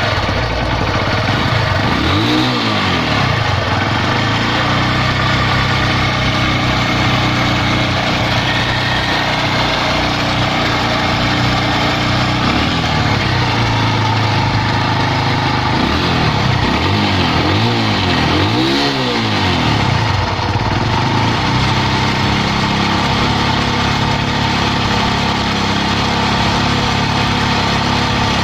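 Honda CB110 single-cylinder four-stroke engine idling, blipped up and back down once about two seconds in and several times around two-thirds of the way through. Its top end is noisy, which the mechanic takes for a slack timing chain, worn chain guide roller or tensioner.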